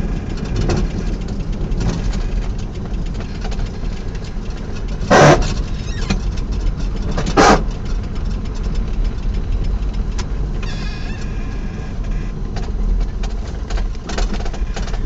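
1983 Subaru BRAT running with a steady low rumble, broken by two loud, short clunks about two seconds apart and a brief squeal a little later: the drivetrain noise the owner is chasing.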